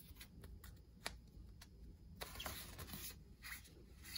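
Faint rustling and crinkling of a warning tag being bent and felt between the fingers. There are a few small ticks in the first couple of seconds, then a longer rustle about two seconds in.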